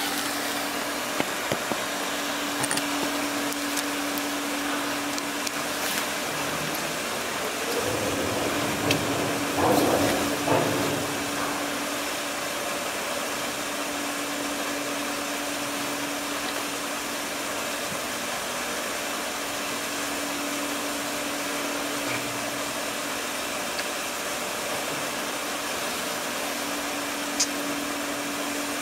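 Steady machinery hum and airy whir of the expedition ship MS Fram, heard from the deck, with one constant low-pitched tone. About eight seconds in it swells louder for a few seconds, then settles back.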